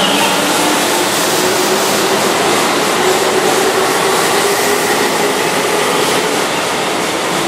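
Keihan 1000 series electric train running along the station platform, its cars going by with steady wheel-and-motor running noise and a faint motor tone.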